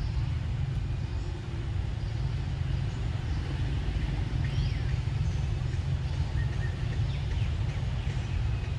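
Steady low rumble, with scattered short bird chirps over it.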